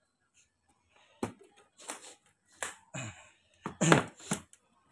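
Handling noises from unpacking a wireless microphone case: a sharp click about a second in, then several short rustles and knocks of plastic wrapping and case parts, the loudest near the end.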